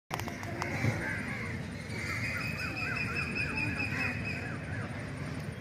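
Birds calling, including a run of about eight short rising-and-falling notes in the middle, against a steady high whine and a constant low background rumble.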